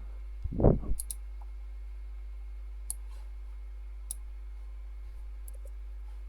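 Computer mouse clicks: a few sharp single and double clicks spread over several seconds. A soft low thump on the microphone comes just under a second in, the loudest sound, over a steady low hum.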